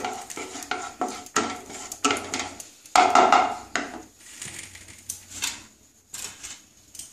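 Wooden spatula scraping and knocking in a non-stick kadai as it spreads a little oil around the pan, with a louder clatter about three seconds in and lighter knocks as it is set down on the rim.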